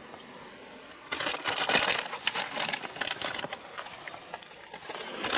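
Irregular crunching and crackling on gravel and dry debris, beginning about a second in.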